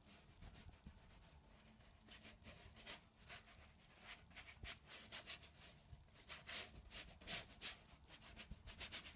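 Paintbrush bristles scrubbing across canvas: faint, short scratchy strokes at an uneven pace, coming faster and louder over the last few seconds.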